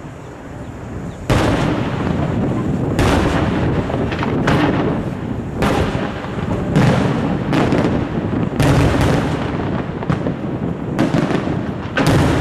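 Aerial firework shells bursting: a sudden loud bang about a second in, then about a dozen more bangs, roughly one a second, each trailing off into a rumble.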